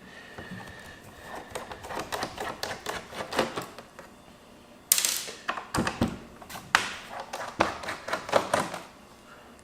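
Plastic clicks, taps and scrapes from an HP G72 laptop's keyboard and case parts being pried and handled, with a louder scrape about five seconds in.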